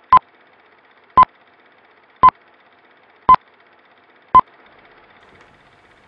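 Radio time-signal pips: five short beeps of one steady pitch, evenly spaced about a second apart, over a faint hiss.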